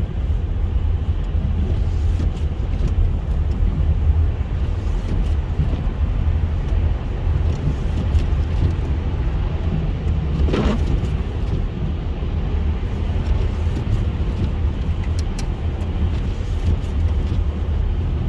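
Steady low rumble of a car driving on a snowy highway, heard from inside the cabin, with one brief sharper sound about ten seconds in.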